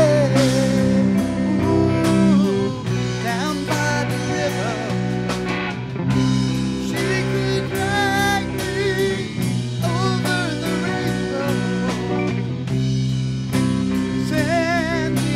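Live rock band jamming in a loose blues-rock style: guitar with wavering, bending notes over steady bass and drums.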